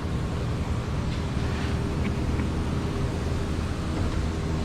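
Steady low rumble and hiss of repair-shop background noise, with a faint constant hum and a few light clicks.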